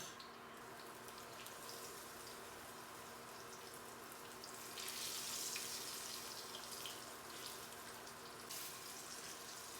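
Hot olive oil sizzling in a frying pan as chicken pieces are laid in. The sizzle swells from about five seconds in and eases again after about eight seconds, over a faint steady hum.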